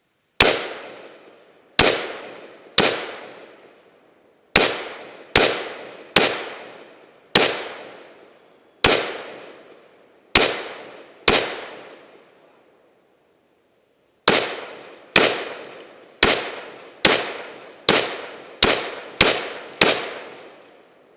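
AR-15 rifle fired shot by shot at a steady slow pace, about nineteen sharp shots with a pause of about three seconds midway. Each shot rings out briefly before dying away.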